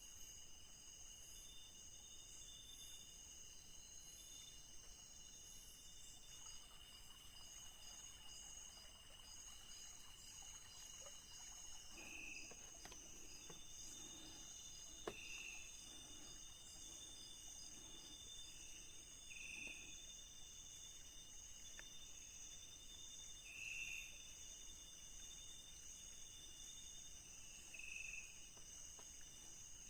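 Night tropical forest insect chorus: crickets and other insects keep up several steady, high-pitched trills. From about halfway in, a short call repeats every few seconds over the chorus.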